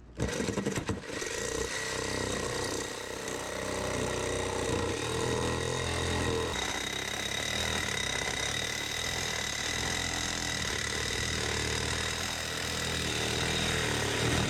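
Jigsaw cutting through the thin sheet metal of an old lantern. It starts suddenly and runs steadily for about fourteen seconds, then stops.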